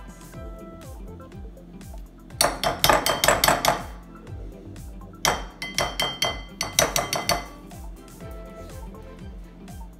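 A metal utensil clinking and scraping against a glass mixing bowl in two bouts of rapid taps, starting about two seconds in and again about five seconds in, as butter is knocked off into the bowl. Background music with a steady beat runs underneath.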